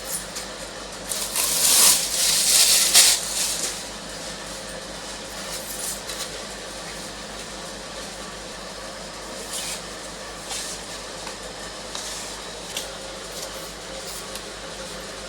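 Rustling and scraping of packaging being handled, loudest for a couple of seconds about a second in, then occasional light clicks and rustles over a steady background hiss.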